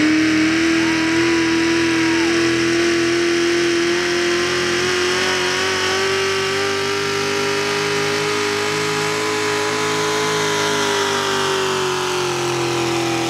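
440-cubic-inch small-block V8 of a 4x4 pulling truck held at high revs under full load while pulling a weight-transfer sled. The pitch climbs slowly, then eases off a little near the end as the truck bogs down.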